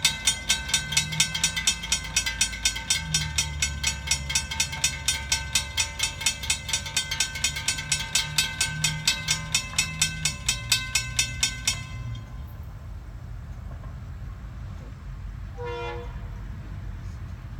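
Railroad grade-crossing warning bell ringing in rapid, evenly spaced strikes while the gates rise; the bell cuts off about twelve seconds in. A low rumble runs underneath, and a brief horn note sounds near the end.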